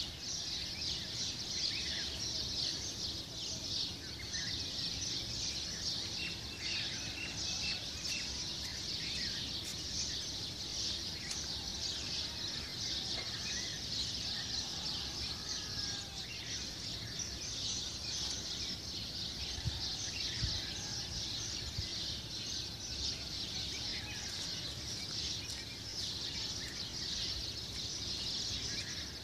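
A steady chorus of many small birds chirping, with a faint low rumble underneath.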